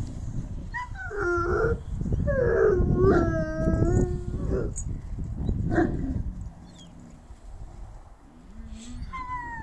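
Large shepherd dogs play-fighting, giving drawn-out, wavering whining howls for the first few seconds, then a short call and, near the end, another falling whine.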